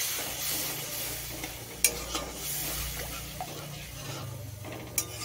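Flat metal spatula stirring and scraping thinned tomato masala gravy in a metal kadhai, with a light sizzle from the hot pan. The spatula clinks sharply against the pan about two seconds in and again near the end.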